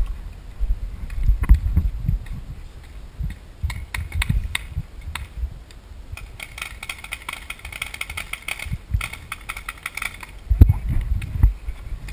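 Wind buffeting a body-worn action camera's microphone in uneven gusts, with scattered clicks and knocks from the wearer moving about. A few seconds of higher rattling come partway through.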